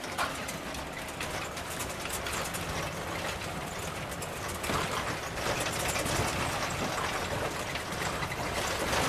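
Vehicle driving on a rough road: steady engine and road noise with a constant light rattling.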